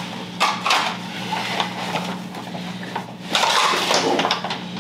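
Sig P320 pistol being worked during a dry-fire reload: a run of short metallic clicks and clatter from the magazine and slide, the loudest about three and a half seconds in.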